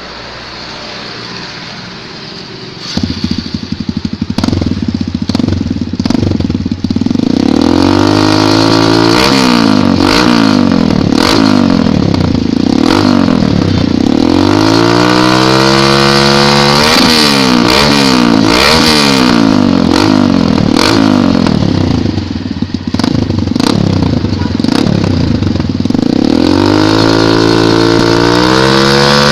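Kawasaki KLX D-Tracker's single-cylinder four-stroke engine through an aftermarket Norifumi exhaust, idling at first, then revved over and over from about seven seconds in, the pitch rising and falling with each blip of the throttle. It eases back toward idle for a few seconds past the twenty-second mark, then revs again.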